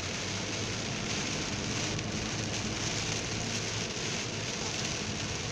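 Heavy rain hitting the roof and windshield of a moving car, heard from inside the cabin as an even, steady hiss, with a low hum from the car and its tyres on the wet road beneath.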